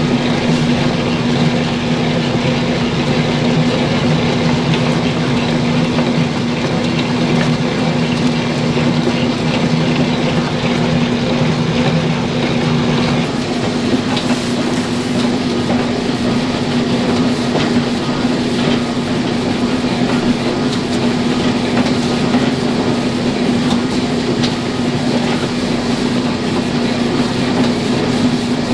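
Electric motor of a commercial flour-and-dough machine running steadily: a loud, even mechanical hum with a constant pitched drone, whose lower rumble eases off about halfway through.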